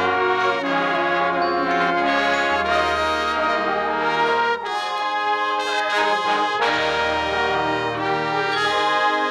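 Marching band brass section of trumpets, mellophones and trombones playing held chords together, with low notes underneath; the music dips briefly and moves to a new chord about halfway through.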